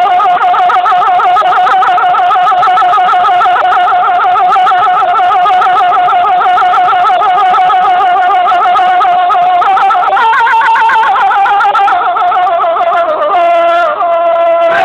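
A male singer holding one long, high note with a strong, even vibrato in a Persian classical-style song. About ten seconds in the note lifts, and near the end it falls away in quick steps.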